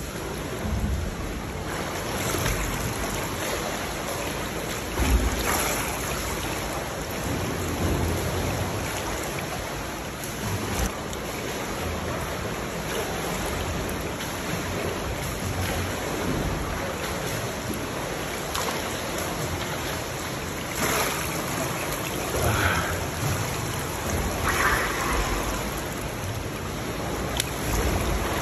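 Pool water splashing and lapping as a swimmer does a dolphin-kick stroke with fins, over a steady rushing hiss. There are louder splashes about five seconds in and several more later on, with splashing close by near the end.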